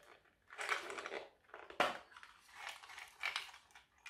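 Small plastic rotary-tool accessories and their packaging being handled: bursts of rustling and clicking, with one sharp click just under two seconds in.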